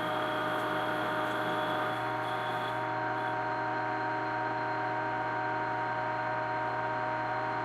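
Metal lathe running steadily, its motor giving a constant hum with several steady whining tones. A faint high tone on top stops about three seconds in.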